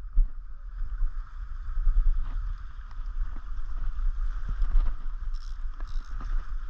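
Wind buffeting the microphone in a constant fluctuating low rumble, over a steady wash of small waves lapping against the rocks.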